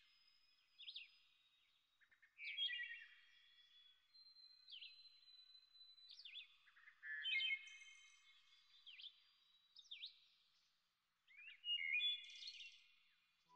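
Birds chirping and whistling: a string of short calls and quick sweeping chirps, several overlapping, with the loudest calls coming about every five seconds.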